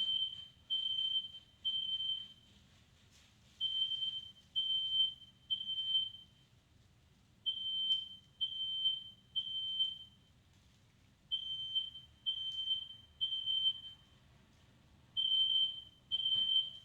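Household smoke alarm sounding its high-pitched beep in groups of three with a short pause between groups, the standard fire-alarm pattern, set off by smoke in the room.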